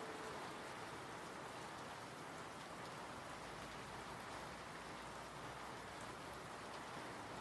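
Steady rain falling, an even, unbroken patter of drops.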